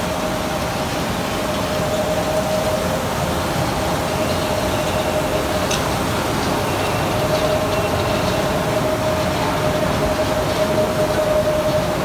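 A 500 kg/h HDPE film hot washing line running: a steady, loud industrial machinery noise from its motors, conveyor and wash tanks, with a steady mid-pitched hum through it. There is one sharp click about six seconds in.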